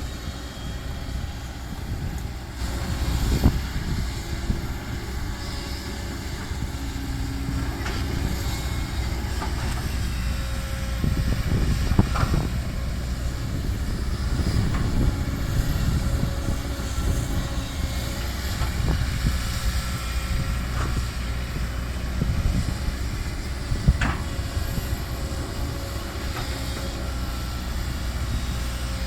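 Heavy dump truck engine running with a steady low rumble, with a few sharp knocks, three of them standing out.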